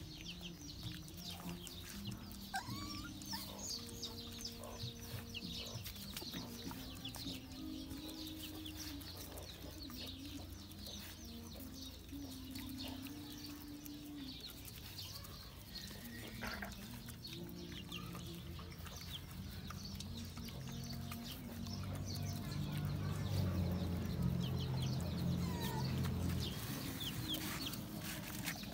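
Chickens clucking, with many short high chirps throughout and low held tones underneath that grow louder about three quarters of the way through.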